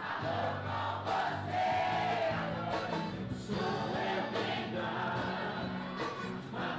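Live sertanejo music: a band of acoustic guitars and electric bass playing steadily while several voices sing the melody together.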